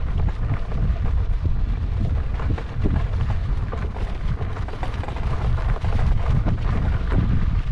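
Wind buffeting the microphone in a steady low rumble while riding an electric unicycle down a dirt trail, with frequent short crackles and crunches from the tyre rolling over gravel and bumps.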